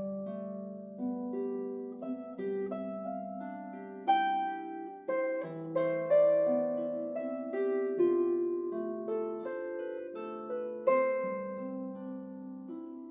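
Solo pedal-less lever harp, a Blevins 38-string, playing a gentle melody over sustained lower notes: plucked strings ringing on and overlapping, with the sharpest plucks at about four, six, eight and eleven seconds in.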